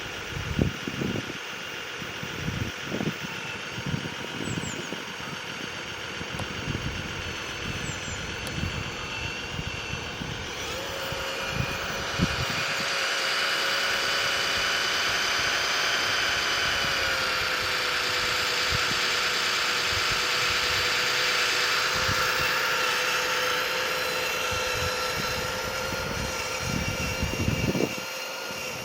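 Servonaut sound module in a Tamiya RC Kenworth truck playing a simulated truck diesel engine, idling with scattered low thumps, then rising in pitch and level about 11 seconds in as the truck drives off, dipping slightly about 17 seconds in, and dropping back near the end.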